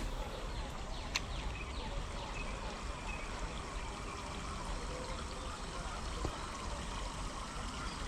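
Steady trickle of flowing stream water, with faint short chirps over it and one sharp click about a second in.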